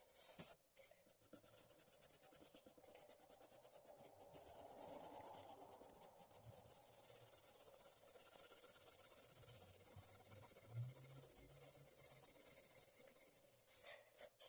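Felt-tip marker scratching on paper as it colours in an area: quick back-and-forth strokes for the first several seconds, then a steadier continuous scratching.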